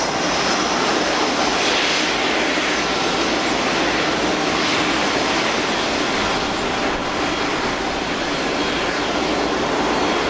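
Jet aircraft engine noise: a loud, steady rush with a faint high whine, cutting in suddenly at the start.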